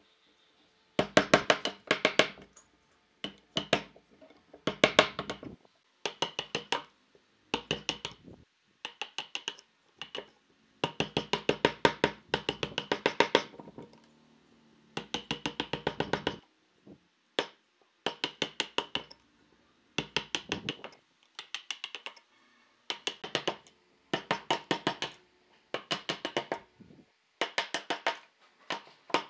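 A mallet tapping a narrow chisel down into a pine blank to chop out the waste between saw kerfs, in quick bursts of sharp ringing knocks with short pauses between bursts.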